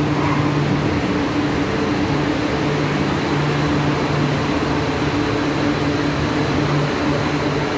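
Steady mechanical hum of a Taipei Metro Wenhu line rubber-tyred medium-capacity train standing at the platform behind the screen doors, with a low drone that cuts in and out.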